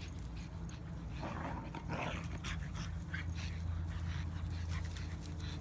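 A dog panting in short breaths, with scattered small clicks over a steady low hum.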